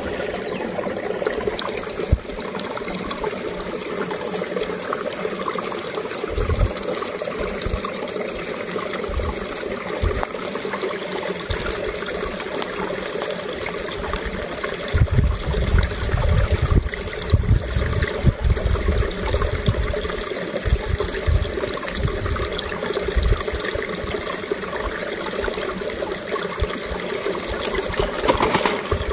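Shallow stony stream trickling steadily over pebbles, with a few low rumbling bumps now and then, loudest about halfway through.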